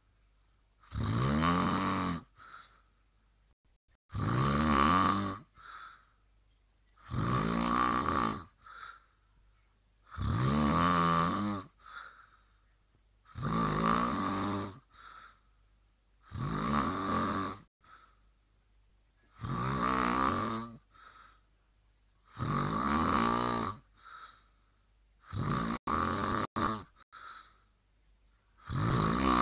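A person snoring loudly and regularly, one long rasping snore on each breath in about every three seconds, each followed by a short soft breath out. The snoring goes on despite an anti-snoring device that does not work.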